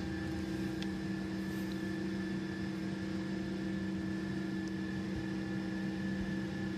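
Steady airliner cabin drone: an even rush with a low hum and a faint high whine.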